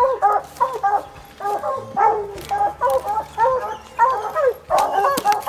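Hunting hounds baying, short arched barks coming quickly one after another, about two or three a second, at times overlapping.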